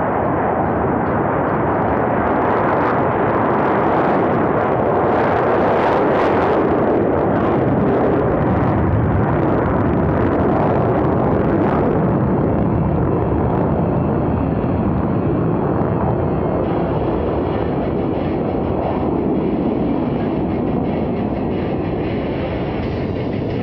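Four Boeing F/A-18 Super Hornets taking off together in full afterburner, making a loud, deep jet roar. It swells to its loudest a few seconds in as the formation passes, then slowly fades as they climb away.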